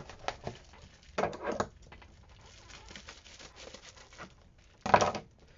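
Skincare containers and their packaging being handled: rustling and faint small clicks. There are two short rustles about a second in, then a run of faint ticks, and a louder rustle near the end.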